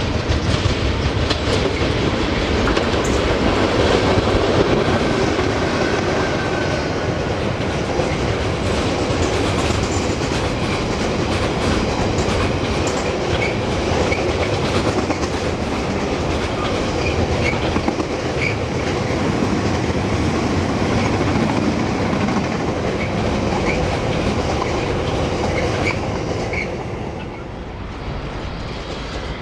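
Container freight train passing through at speed: a long rake of container wagons with the wheels clattering rhythmically over the rail joints. The sound drops slightly near the end.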